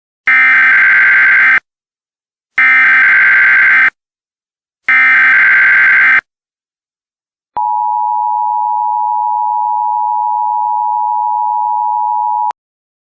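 Opening of an Emergency Alert System broadcast: three identical digital header bursts, each a little over a second long, then a steady attention-signal tone for about five seconds that cuts off abruptly. Together they announce that an emergency message is about to be read.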